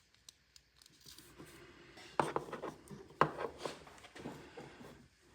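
Short, irregular scratching strokes of a tool engraving a name into a hand tool, with two sharper, louder strokes about two and three seconds in.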